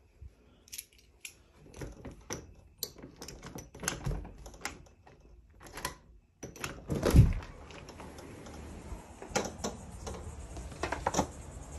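Light clicks and taps of a door being handled and its doorknob turned, with a heavier thump about seven seconds in.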